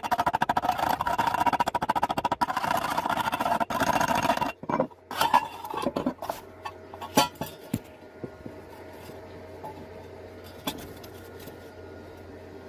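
Electric welding arc crackling steadily while a bead is run on thin metal, then cutting off abruptly about four and a half seconds in. A few sharp clinks of metal follow, then a faint steady low hum.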